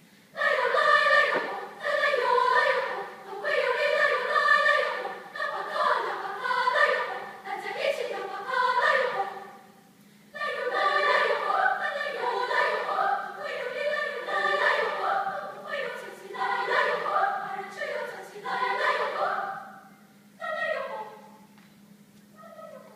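A large school choir singing in phrases, stopping briefly about ten seconds in before going on, with a last short phrase near the end.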